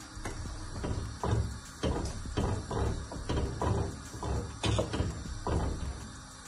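Wooden spoon stirring a pot of gungo peas in coconut milk, knocking and scraping against the pot's sides and bottom about three times a second, stopping about a second before the end.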